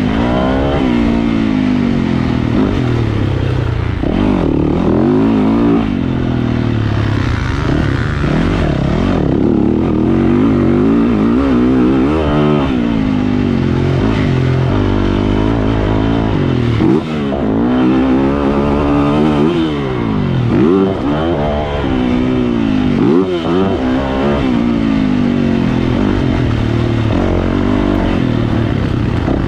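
Yamaha YZ450F motocross bike's four-stroke single-cylinder engine revving hard, its pitch rising and falling over and over as the throttle is opened and closed.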